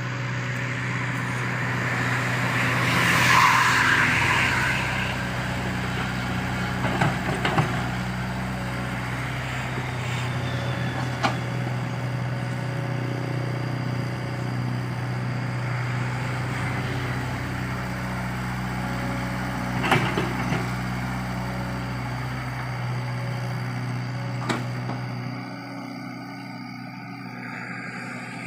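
Komatsu PC75UU excavator's diesel engine running steadily as it works, with a louder rushing surge a few seconds in and a few sharp metallic clanks scattered through. The engine note drops near the end.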